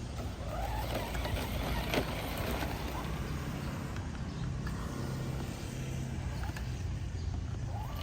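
ZP1005 remote-control off-road car running over rough ground, its drive making a steady low hum with a couple of brief whines that rise and fall in pitch, at the start and near the end.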